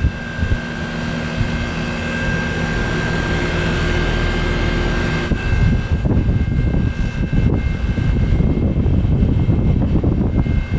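1988 Trane XE900 1.5-ton heat pump running in heat mode shortly after starting: a steady compressor hum with a whine from the outdoor unit and the drone of its fan. About halfway through, a rougher, uneven low rumble joins the hum.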